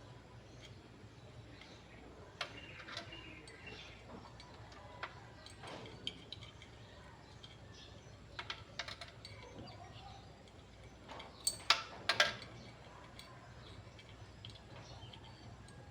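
Scattered light clicks and taps, with a cluster of sharper clicks about twelve seconds in.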